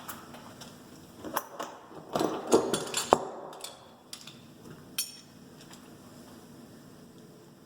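Metal deadbolt parts clinking and knocking as they are handled and fitted into the door: a quick run of sharp knocks between about one and three seconds in, and one more click near five seconds.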